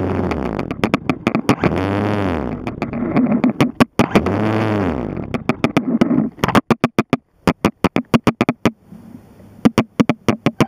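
Motor of a remote-controlled aircraft buzzing, its pitch rising and falling about three times as the throttle is worked. About halfway through the sound breaks up, cutting in and out with rapid clicks and short gaps.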